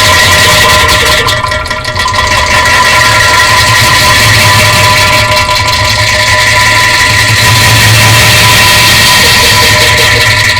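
Distorted, bass-boosted fart sound effect played at full volume: a steady, clipped low drone with a buzzing tone on top, dipping briefly about two seconds in.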